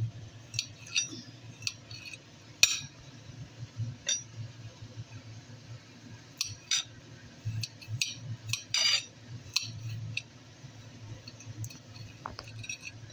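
Kitchen knife cutting carrot sticks on a plate: irregular sharp clicks as the blade strikes the plate, with one louder knock about two and a half seconds in.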